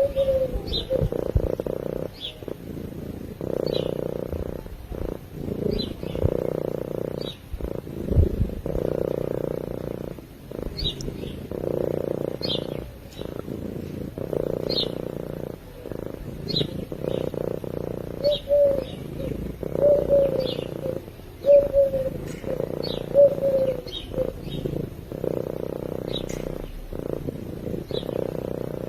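Sleeping cat purring in a steady rhythm of long pulses, each swell lasting a second or two. Short, high bird chirps come and go over it.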